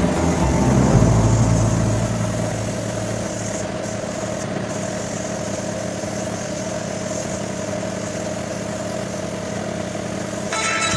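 An engine idling steadily, a little louder in the first two seconds.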